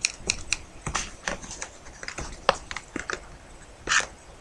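A folded paper model of a pistol handle being handled: a quick, irregular string of light clicks and crackles of paper under the fingers, with a longer rustle about four seconds in.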